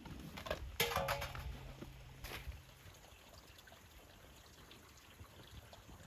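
Liquid dripping and trickling from a perforated aluminium colander held over a steel pot, with sharp metallic knocks of the colander and pot about a second in and again a little after two seconds, the first leaving a brief ring.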